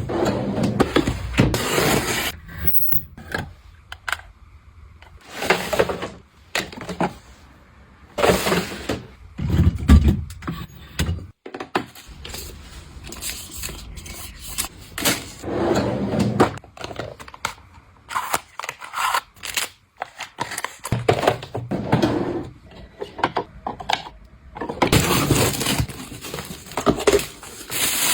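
A string of close handling sounds: small objects knocked and set down, scraping, and crinkling and tearing of packaging, each lasting a second or two with short pauses between.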